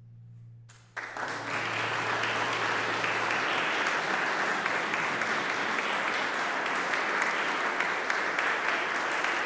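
The faint ringing tail of an a cappella choir's final chord, then audience applause breaking out about a second in and continuing steadily.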